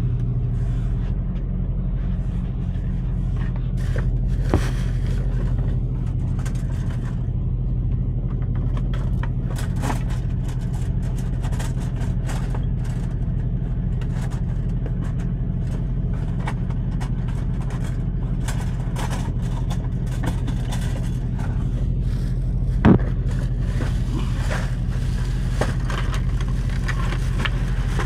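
Semi truck's diesel engine idling with a steady low hum heard inside the cab, while plastic bags and loose items rustle and scrape as they are handled. Two sharp knocks stand out, one about four seconds in and a louder one about three-quarters of the way through.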